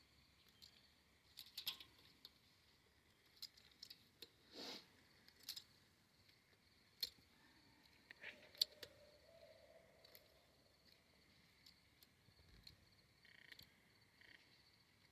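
Near silence: a faint, steady high-pitched hum with scattered small clicks and taps.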